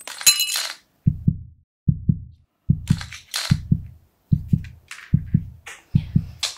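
Heartbeat sound effect: a low double thump repeating about every 0.8 seconds. Above it come short bursts of crackling and clinking near the start and around three seconds in, the sound of an eyeglass lens cracking under a dachshund's paw.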